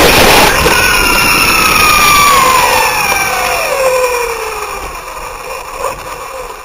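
Onboard an OFNA radio-controlled buggy: a loud rough rush of noise for the first moment, then the motor and drivetrain whine falling steadily in pitch over about four seconds as the car slows, fading out near the end.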